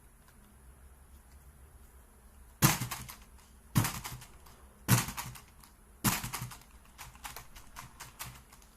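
Hard objects being handled: four sharp clacks about a second apart, each followed by a short rattle of smaller clicks, then a few lighter clicks near the end.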